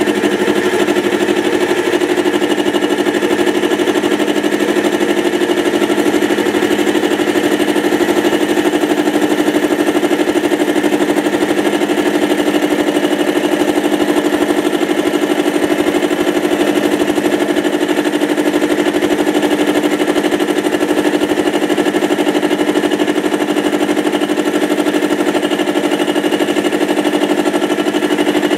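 Mini lathe running with an end mill spinning in the chuck, milling a metal workpiece clamped in the tool post: a loud, steady running tone with the end mill cutting metal.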